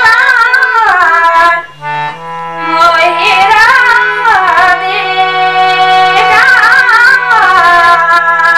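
A woman singing a Pahadi song in a wavering, ornamented melody over held-note instrumental accompaniment with a low drone. The music dips briefly about two seconds in.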